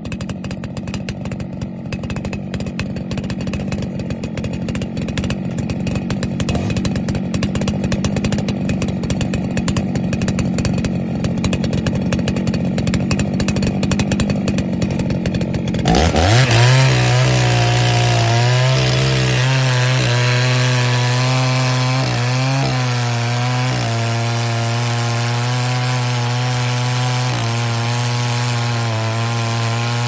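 Two-stroke chainsaw running at speed as it cuts into the base of a standing teak trunk. About halfway through, the sound changes abruptly: a quick rise in pitch, then a smoother, steady engine note as the bar keeps working in the cut.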